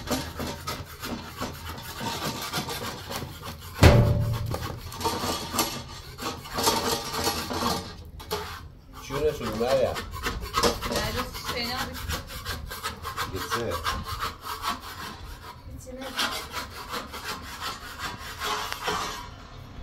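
Repeated rubbing and scraping strokes against a wooden surface, with one heavy knock about four seconds in.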